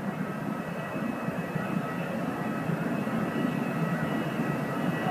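Steady jet aircraft noise: a low rumble with a few thin, steady high-pitched whining tones on top, growing slowly louder.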